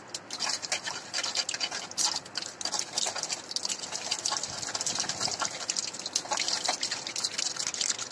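Mustard seeds and urad dal frying in hot oil in a kadai: a steady sizzling hiss with frequent sharp crackles and pops, the tempering (thalippu) stage of the dish.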